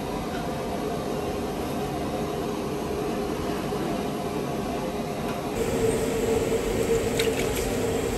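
Steady mechanical hum with a constant drone, louder a little past halfway in, with a few faint clicks near the end.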